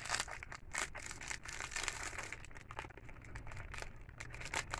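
Clear plastic wrapping on a chain strap crinkling in the hands, a faint run of irregular small crackles.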